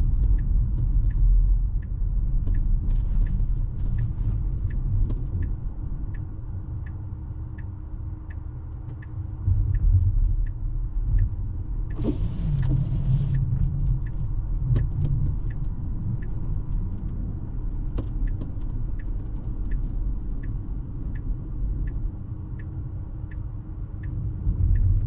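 Low rumble of tyres and road noise inside a Tesla's cabin, with the turn-signal indicator ticking steadily, about three ticks every two seconds. A brief hiss rises over the rumble about halfway through.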